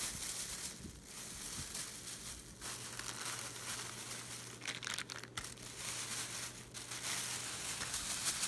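Plastic crinkling and rustling throughout as it is handled, with a few sharper crackles.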